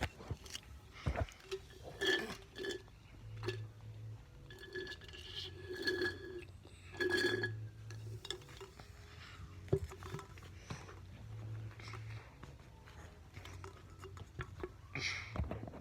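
A person drinking: soft clinks of a glass being handled and short, scattered swallowing and throat sounds, with no burp.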